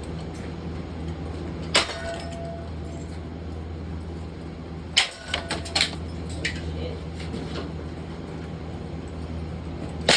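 Harbor Breeze Barnstaple Bay ceiling fan being struck: a sharp hit about two seconds in with a brief ring, a quick cluster of hits and clatter around the middle, and another hit near the end, over a steady low hum.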